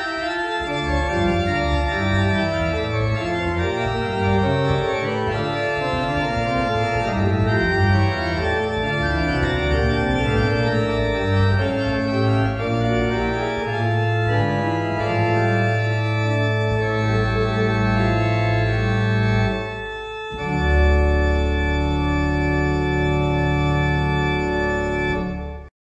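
Pipe organ playing a full-textured piece of many shifting held notes over deep bass. About twenty seconds in, after a brief dip, it closes on one long, full final chord that cuts off sharply near the end.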